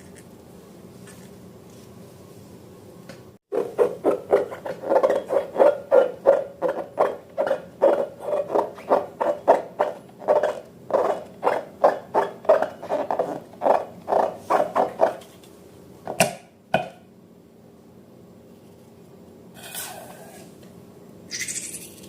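Slime being mixed by hand, squelching in quick, even strokes about three times a second for around ten seconds, over a steady low hum. A couple of sharp clicks follow.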